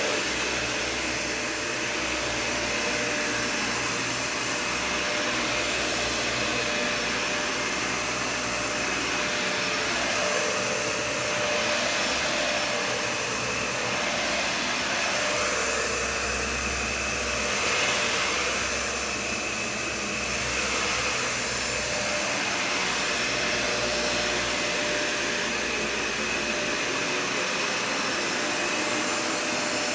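Dyson Ball Total Clean upright vacuum running steadily while vacuuming, a dense rushing noise with a steady high motor whine. Its sound swells and fades every few seconds.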